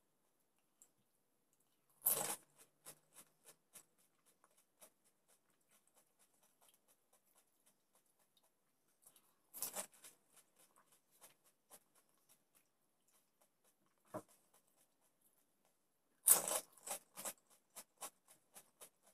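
Crisp golgappa (pani puri) shells crunching close to the microphone: three loud crunches, each followed by a run of quieter crunchy clicks as the shell is chewed.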